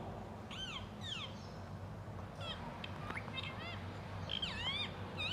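Ringneck parrot giving a series of short, high chirping calls, each rising and then falling in pitch, some in quick runs of three or four.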